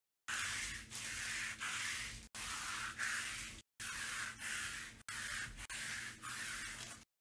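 Adhesive lint roller rolled back and forth over a cloth table covering, about nine quick strokes in a row, each a rasping rush of noise.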